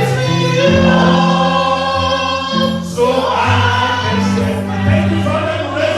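A choir singing gospel music in held chords that change every second or two.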